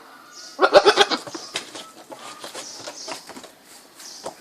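A goat gives one short, wavering bleat just over half a second in, followed by quieter scattered clicks and rustling.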